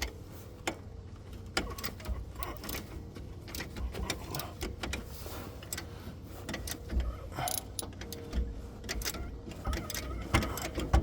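Hand ratchet clicking in irregular runs as the nut is worked off a shock absorber's mounting bolt, with metal tools clinking.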